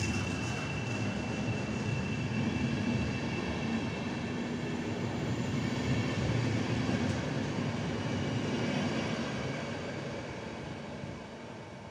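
PKP Intercity passenger coaches rolling past as the train pulls out of the station, a steady rolling rumble from the wheels on the rails. A thin high tone in the first couple of seconds dies away, and the rumble fades over the last few seconds as the last coach goes by.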